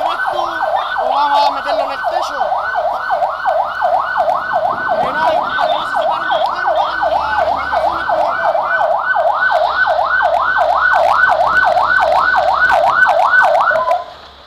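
Fire engine siren in yelp mode, a fast up-and-down wail sweeping about three times a second, cutting off suddenly near the end.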